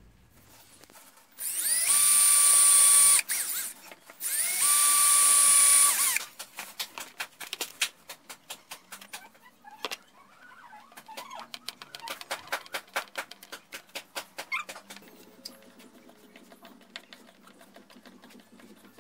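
Cordless 18V drill/driver running in two bursts of a couple of seconds each, its motor whine spinning up and winding down at each. After them comes a long run of quick small clicks, then a faint steady hum near the end.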